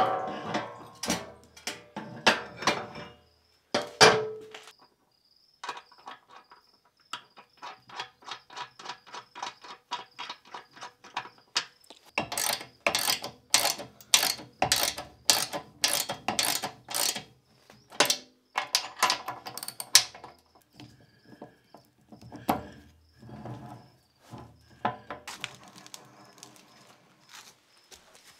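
Ratchet wrench clicking in quick, even runs as the nuts are tightened on the mounting plates of new steel casters. A couple of sharp metal knocks come in the first few seconds.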